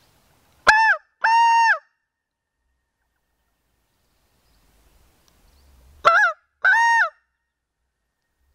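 Hand-held mouth-blown reed call sounded in two pairs of short, honking notes, each note dipping in pitch at its end, about a second in and again about six seconds in. It is a locator call blown to try to make a tom turkey gobble.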